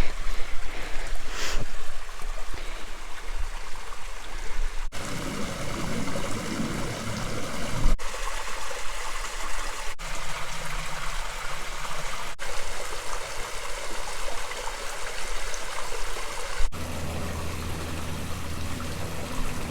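Small waterfall running with a low flow, water splashing and trickling steadily. The sound shifts abruptly several times.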